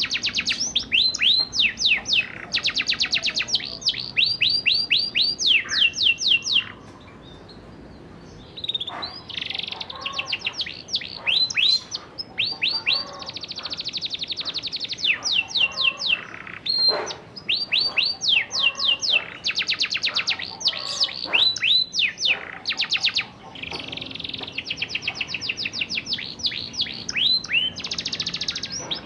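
Young domestic canary singing its rolling song: long fast trills of repeated falling notes, one run after another, with a short break about seven seconds in.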